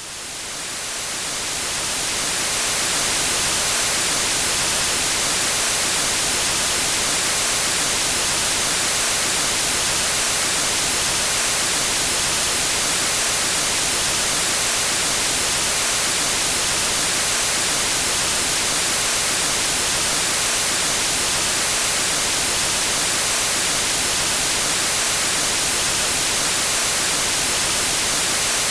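TV static white noise: an even, bright hiss with no tones or rhythm. It fades in over the first few seconds, then holds steady.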